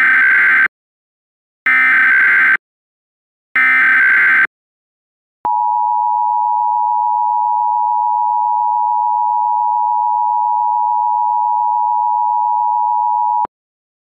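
Emergency Alert System alert in the style of a Trilithic EASyCAP: three rapid warbling data bursts (the SAME header, here encoding a National Periodic Test), each about a second long, then the steady two-tone attention signal held for about eight seconds before cutting off sharply.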